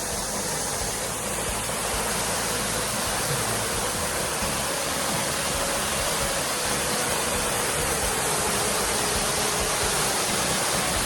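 Dog Stream Waterfall pouring: a steady, unbroken rush of falling water.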